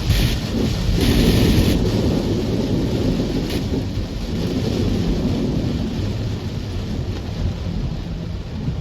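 Heavy rain with a steady low rumble, as of a car driving through flooded streets in a downpour. A louder hiss rises over it for the first couple of seconds, then eases off.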